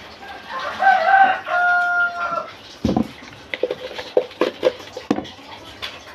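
A rooster crows once: a few broken notes, then one long held note, ending about two and a half seconds in. Afterwards comes a knock, then a run of light clicks and taps from kitchenware being handled.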